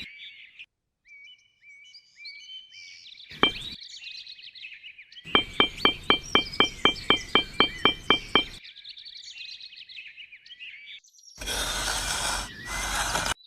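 Small birds chirping throughout, with a single sharp click and then a rapid run of about a dozen clicks at roughly four a second. Near the end comes a loud rushing noise that breaks off briefly once.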